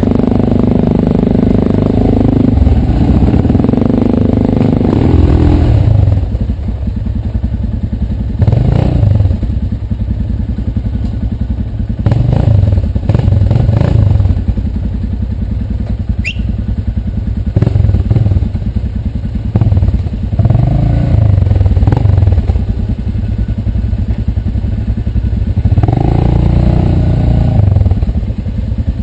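ATV engine running on a rough dirt trail, revving up and easing off in repeated surges every few seconds, loudest during the first six seconds.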